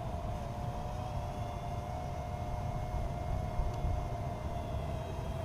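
Parrot Mambo mini quadcopter hovering, its four small propellers giving a steady, even whine. Wind rumbles on the microphone underneath, from a slight breeze.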